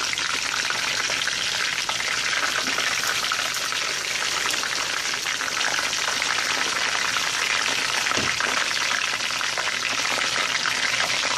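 Whole marinated chicken deep-frying in hot oil in a large steel pot: a steady, dense sizzle and crackle of the oil bubbling around it.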